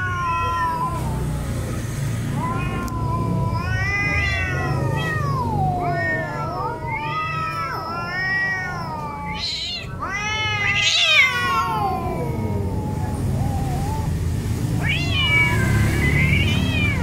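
Domestic cats in a fighting standoff, giving long drawn-out yowls that rise and fall in pitch, one after another, with a loud spitting hiss about eleven seconds in.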